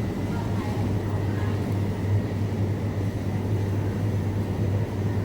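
Steady low hum and rumble of supermarket background noise, with faint steady high tones above it.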